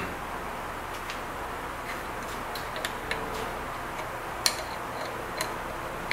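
Sparse, sharp metal clicks and taps as a steel workpiece and parallel are seated against the hardened jaws of a milling vise and the vise is clamped by hand, the loudest click about four and a half seconds in. A steady low background noise runs underneath.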